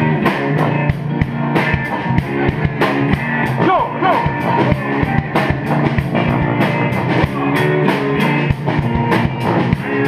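Live band playing an upbeat song: a drum kit keeping a steady beat, guitar and a sousaphone bass line, with trumpet and saxophone and a lead singer at the microphone.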